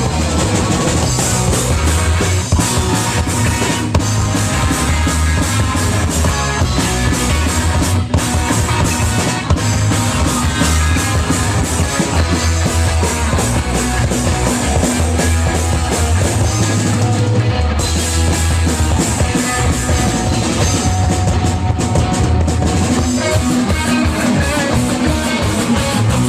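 Punk rock band playing loudly: drum kit, bass and two guitars in a continuous, driving passage.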